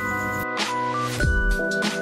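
Background music with held tones; a low beat comes in about a second in.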